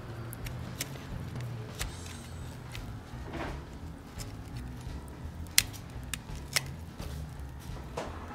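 Utility-knife blade cutting the stitching threads that hold a boot's rubber midsole to the welt: scattered sharp snaps and clicks, a few of them louder, over a low steady hum.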